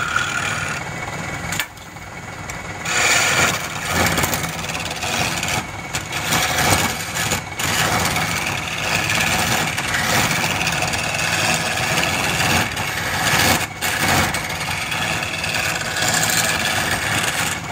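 Wood lathe motor running steadily while a hand chisel cuts a spinning wooden spindle: a rough scraping hiss over the motor's hum that swells and eases as the tool bites. There is a brief lull about two seconds in.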